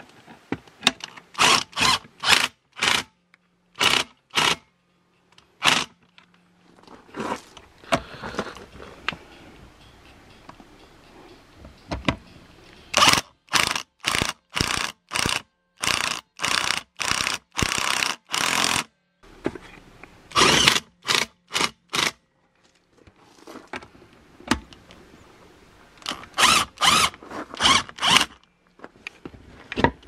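Power drill driving the screw of a clamp-on tyre bead breaker in repeated short bursts with pauses between them, running the clamp down to push the tyre's bead off the rim.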